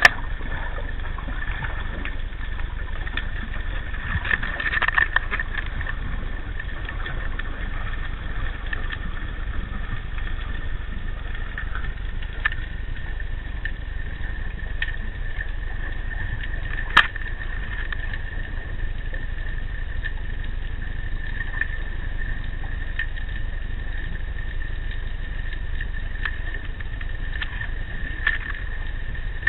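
Underwater audio picked up through a sealed action-camera housing on a squid jig: a steady low rumble with a constant high-pitched tone, and scattered sharp clicks, the loudest about 17 seconds in.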